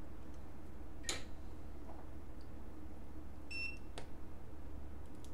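A short, high electronic beep about three and a half seconds in, with a couple of light clicks before and after it, over a steady low electrical hum.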